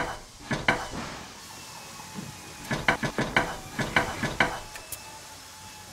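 A series of short, sharp knocks: a few near the start, then a quick run of about seven, roughly three a second, from about three seconds in, over a faint steady hiss.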